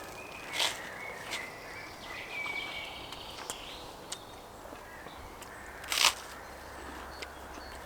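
Outdoor woodland background with a few short bird chirps in the first three seconds, and three sharp clicks or knocks, the loudest about six seconds in.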